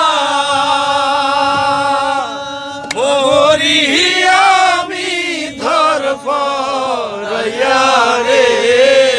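Group of men singing a Bengali folk song together, drawing out long held, wavering notes with short breaks between phrases.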